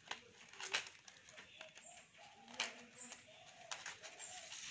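Faint clicks and rustling from hands handling an old step-up transformer's copper winding leads and insulation paper, with a few sharp ticks spread through it. Faint short low calls sound in the background.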